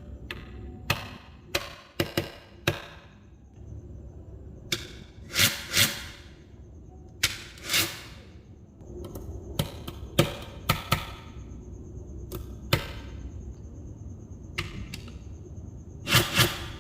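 Small magnetic balls clicking and snapping together as they are joined into a model: irregular sharp clicks, some in quick pairs or short clattering runs, the loudest pair near the end.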